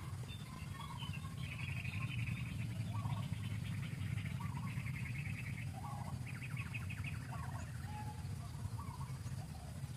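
Birds calling: a fast, even trill three times, among scattered short chirps, over a steady low rumble.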